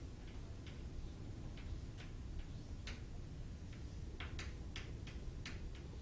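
Writing on a board while drawing a diagram: irregular short, sharp ticks, roughly one or two a second, over a steady low hum.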